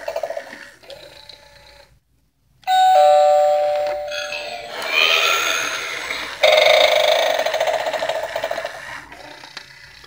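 Battery-operated animated haunted eyeball doorbell, a Gemmy knockoff, playing its recorded sound effects. After a short pause, a two-note ding-dong chime sounds about three seconds in, followed by further recorded effects that fade near the end.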